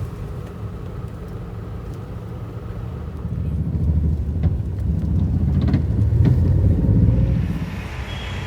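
Low rumble of a motor vehicle, swelling from about three seconds in and easing off near the end.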